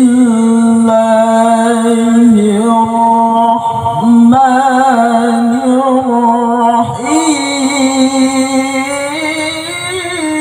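A male Quran reciter (qari) chanting a tilawah in long, drawn-out melodic phrases. Each note is held for seconds with wavering ornaments, and brief breaks fall between phrases.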